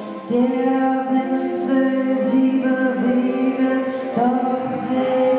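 A woman singing in German into a microphone, accompanied by a small wind ensemble of bass clarinet, soprano saxophone and trombone. The notes are held and flowing, with hissing consonants now and then.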